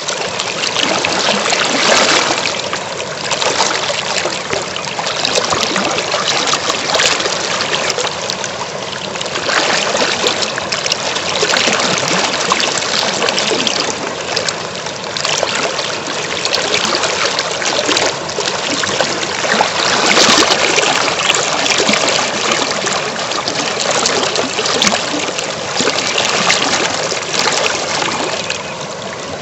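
River water flowing: a steady rush of moving water that swells and eases every few seconds.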